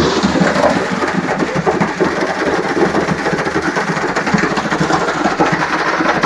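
Concrete mixer truck running while wet concrete slides down its long extended chute and falls into a deep drilled foundation shaft: a loud, steady mechanical noise.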